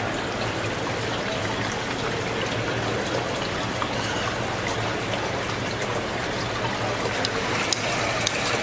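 Water spraying and streaming down over a touchscreen terminal inside a clear acrylic enclosure, splashing and trickling steadily into the basin below, with sharper spatters of drops near the end.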